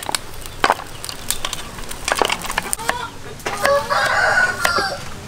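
A rooster crowing once, about three and a half seconds in, for about a second. Under it are scattered sharp clicks and knocks, with a knife chopping on a wooden board near the end.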